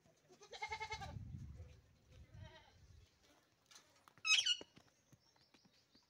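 Alexandrine parakeet calling: a wavering, bleat-like call about half a second in, a fainter one around two seconds, then a loud, high, harsh screech just after four seconds.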